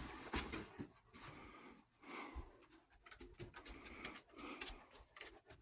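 A Great Pyrenees dog panting faintly in short, uneven breaths.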